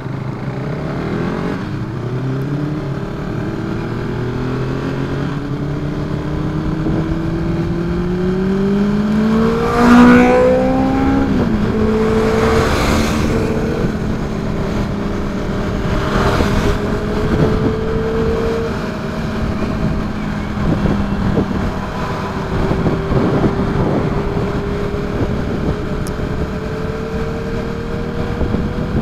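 KTM RC390's single-cylinder engine pulling away and accelerating up through the gears: its pitch climbs steadily for about ten seconds, then drops at each shift and climbs again more gently. A few brief rushing swells stand out over the engine, the loudest about ten seconds in.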